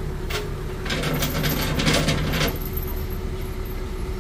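Rattling and clinking in two bursts, a short one about a third of a second in and a longer one from about one to two and a half seconds, over a steady low engine rumble.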